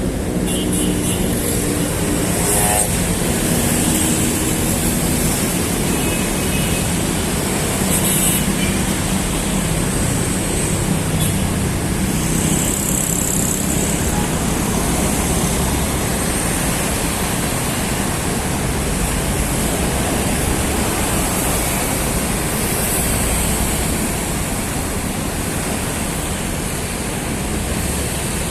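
Steady, dense city road traffic: engines and tyre noise from passing vehicles, swelling as heavier vehicles go by, with a brief sharp rattle about eight seconds in.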